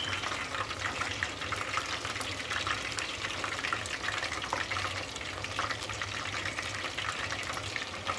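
Battered chicken strips deep-frying in hot oil at about 350–375°F: a steady sizzle of dense fine crackling, over a low hum.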